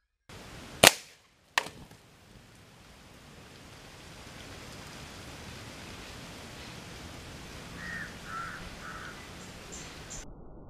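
Air rifle shot: one loud sharp crack about a second in, then a second, fainter crack under a second later, followed by a steady soft hiss.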